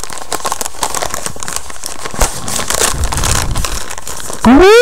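Plastic shipping mailer bag crinkling and rustling as it is opened and a sweater is pulled out. Near the end, a loud rising vocal exclamation cuts in.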